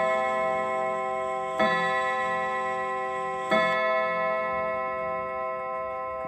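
Trumpf quarter-striking mantel clock striking the hour on its gong: two strikes about two seconds apart, the second about three and a half seconds in. The ringing then fades slowly under the clock's ticking.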